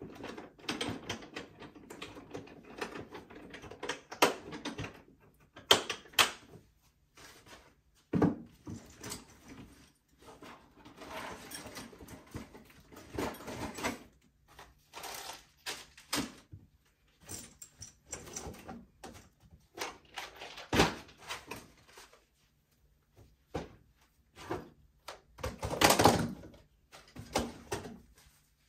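Irregular knocks, clicks and scraping of hardware being handled during a TV wall-mount installation, with a louder clattering burst near the end.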